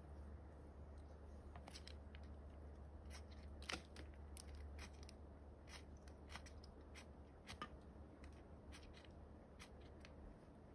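Faint, irregular sharp clicks and short scrapes of tinder and split kindling sticks being handled and set on a steel fire-pit grate, a fire being laid. The two strongest come about a third of the way in and a little past the middle.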